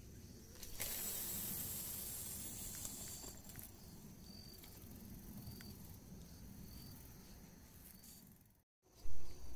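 A steady hiss that comes in suddenly about a second in and slowly fades, with faint short insect chirps repeating in the background. Near the end the sound drops out for a moment and a brief loud bump follows.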